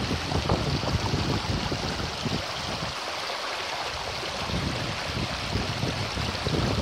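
Rocky mountain stream running over boulders: a steady rush of water.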